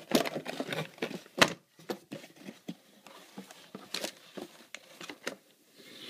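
Heat-pipe CPU cooler handled and set back into its cardboard box: a run of clicks and knocks with light cardboard and paper rustling, the loudest knock about a second and a half in.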